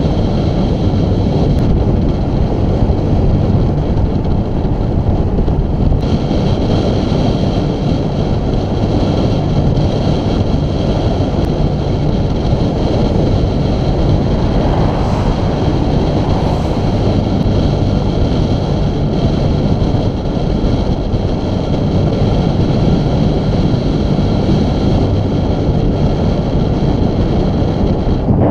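Steady loud rumble of wind on the microphone of a camera riding on a moving road bike. A vehicle passes about halfway through.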